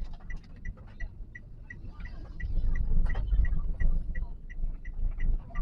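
Toyota Calya's turn-signal indicator ticking steadily, about three ticks a second, heard inside the cabin over the low rumble of the car's engine and road, which grows louder from about halfway through.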